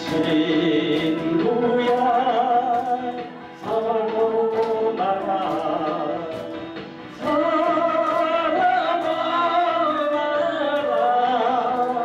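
A man singing a Korean trot song into a microphone over a karaoke backing track, in long held phrases broken by short pauses about three and a half and seven seconds in.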